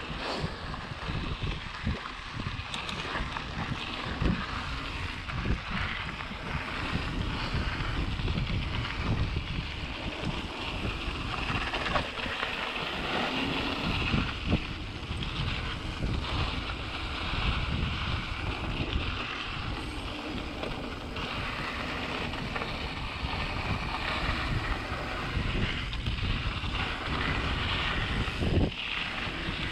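Wind buffeting the handlebar camera's microphone as a mountain bike rides down a dirt trail, with tyre noise on the loose dirt and a few sharp knocks from the bike going over bumps.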